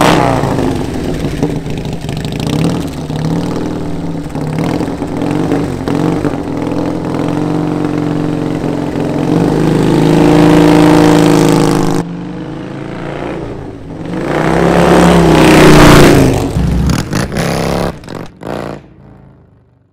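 2004 Harley-Davidson Softail Deluxe's V-twin running through chrome Freedom Sharktail mufflers on True Dual headers, revving as the bike rides. The sound swells and then cuts off abruptly about two-thirds of the way through. It builds again to its loudest and fades away near the end.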